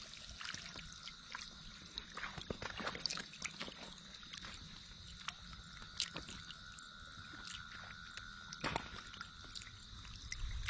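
Light, intermittent splashing and sloshing of shallow water, in scattered small strokes with one louder splash near the end. A faint steady high tone runs underneath.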